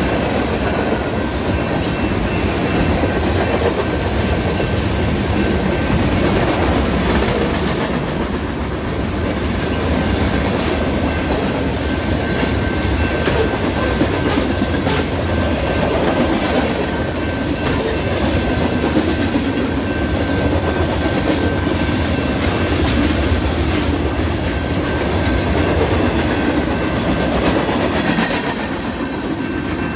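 Freight cars of a BNSF train rolling past a grade crossing: steady wheel and rail rumble with clickety-clack over the rail joints. The crossing's warning bell rings throughout as thin steady tones. The rumble eases a little near the end as the last cars go by.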